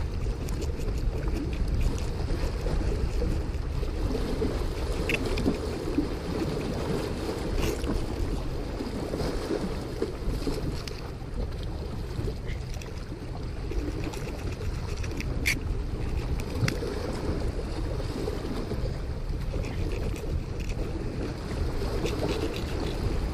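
Wind buffeting the microphone in a steady low rumble, with a few faint clicks as a knife cuts bait on the rock.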